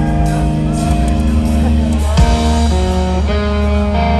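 Live rock band playing, with electric guitars holding long chords and then moving through several quick chord changes in the second half.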